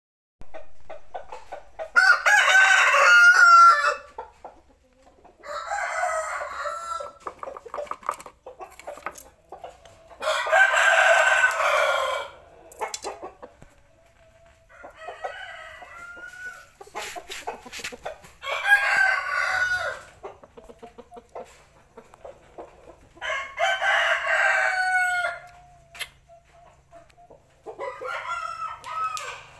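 Gamecock crowing over and over, about seven crows of one to two seconds each, the first one the loudest, with softer calls in between.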